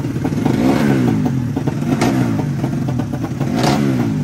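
Drag-racing motorcycle engine being revved in short blips, its pitch rising and falling back about four times, with sharp cracks at the top of two of the blips.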